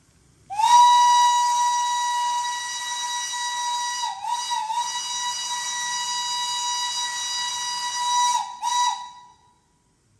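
Steam locomotive whistle blowing one long, steady blast on a single high note, with brief dips in pitch around the middle and two short breaks near the end before it dies away.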